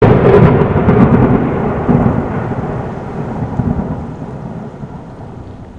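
A loud rolling rumble, strongest at the start and fading away steadily over several seconds.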